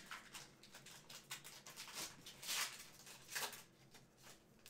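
Crinkling and rustling of a trading-card pack's foil wrapper and the cards being handled: a run of short rustles, the longest and loudest about two and a half seconds in.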